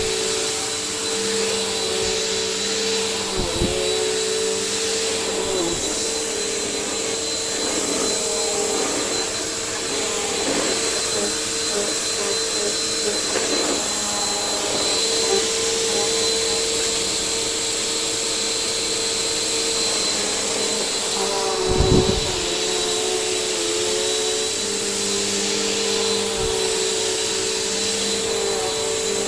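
Bissell Powerforce bagged upright vacuum cleaner running steadily with a constant motor whine. A few short low thumps come through it, the loudest about two-thirds of the way in.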